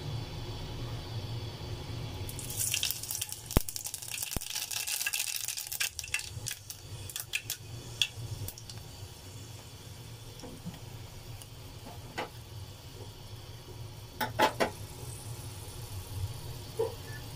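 Hot oil in an aluminium pot starts sizzling about two seconds in as small whole seeds go in, the hiss dying down after a few seconds. Sharp pops and crackles of the seeds frying follow, with a cluster near the end, over a low steady hum.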